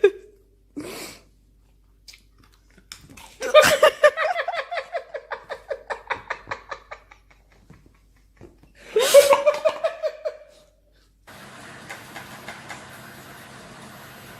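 A person laughing hard, a long run of rapid ha-ha pulses about four a second, with another loud burst of laughter about nine seconds in. A steady low hum takes over near the end.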